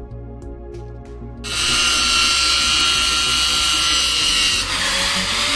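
Background music, then about a second and a half in an angle grinder with a cutting disc starts cutting steel: a loud, steady whine and hiss.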